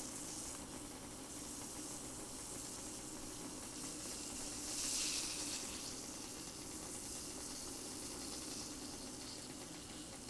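Water at a near boil in a titanium cup over a homemade Super Cat alcohol stove burning denatured alcohol: a steady faint sizzling hiss, swelling briefly about halfway through.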